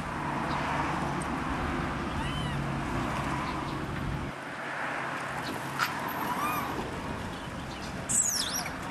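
Macaque troop calling with a few short arched coos, over a low traffic rumble that drops away about four seconds in. Loud high sweeping chirps come near the end.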